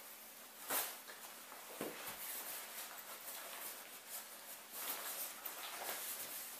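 Insulated winter boots being pulled on: irregular rustling and scuffing, with a few sharp knocks. The loudest knock comes about a second in.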